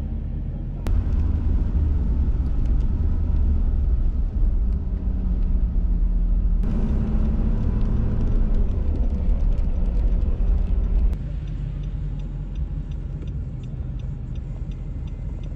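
Low, steady rumble of a road vehicle on the move, changing abruptly about a second in, again near seven seconds and again about eleven seconds in. A light regular ticking runs through the last few seconds.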